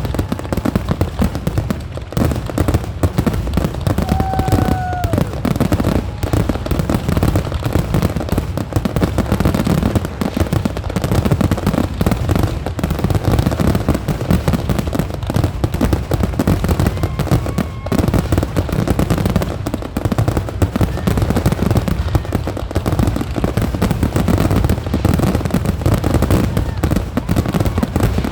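Fireworks barrage: a dense, continuous run of bangs and crackling without a pause, with a couple of brief whistles.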